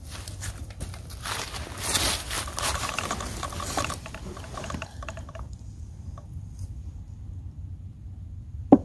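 Rustling and scraping of hands and clothing working close to the microphone, with a quick run of clicks about three seconds in. It goes quieter after about five seconds, and a single sharp click comes near the end.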